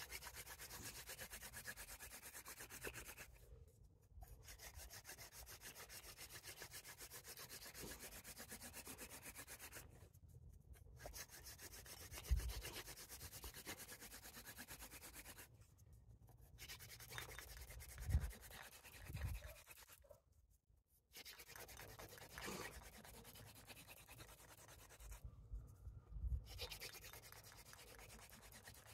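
Hand-drill fire by friction: a seep willow spindle twisted back and forth between the palms, its tip grinding in a cottonwood root fireboard to work up an ember. The grinding comes in runs of a few seconds, broken by about five short silent pauses as the hands go back to the top of the spindle, with a few low thumps along the way.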